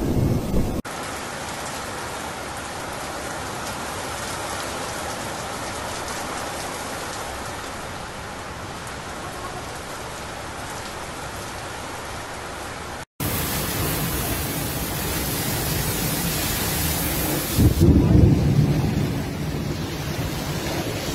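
Heavy thunderstorm rain pouring steadily, with the tail of a low thunder rumble at the start and a loud low boom about eighteen seconds in. The rain sound changes abruptly twice.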